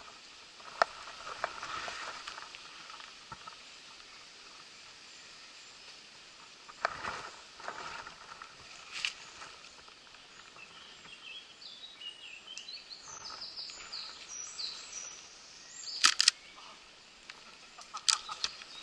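Woodland ambience: birds chirping for a few seconds through the middle, with scattered sharp clicks and snaps, the loudest a quick pair about three-quarters of the way through.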